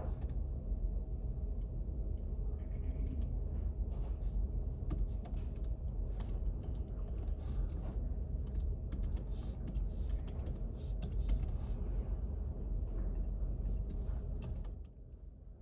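Typing on a computer keyboard: irregular key clicks over a steady low background rumble with a faint hum. The rumble and clicks drop away about a second before the end.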